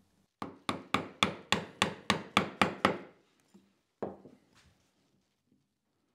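A mallet striking a wood chisel about ten times in quick succession, roughly four blows a second, chopping a nut recess into maple; one more knock follows about four seconds in.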